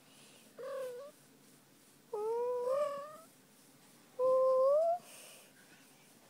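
A house cat making three short, mewing calls, each rising in pitch at the end, the last the loudest. The cat is contented, being given a belly rub.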